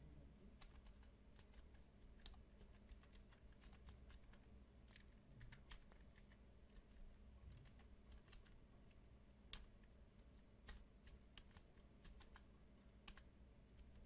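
Faint computer keyboard typing: irregular keystroke clicks at a slow, uneven pace, over a low steady hum.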